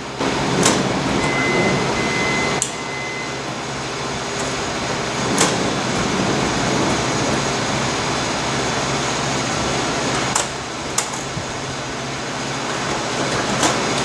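Power sliding door of a 2011–2017 Honda Odyssey running shut, with several sharp clicks and knocks along its travel and a steady beep about a second in lasting about two seconds, over the steady rush of a shop heater. The jerky, clicking close is the sign of a failing center roller hinge, which also makes the door reverse and reopen.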